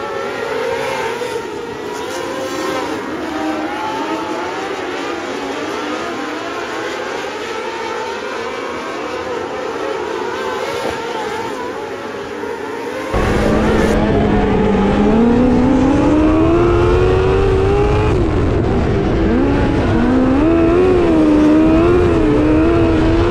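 Several midget race cars running on a dirt oval, heard from beside the track as overlapping engine notes that waver in pitch. About 13 seconds in, the sound switches to an onboard recording of one midget's engine. It is louder and deeper, climbing steadily in pitch as the car accelerates, then rising and falling with the throttle.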